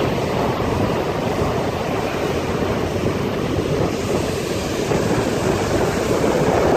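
Stormy Black Sea surf breaking and rushing in a steady, loud wash, with wind buffeting the microphone.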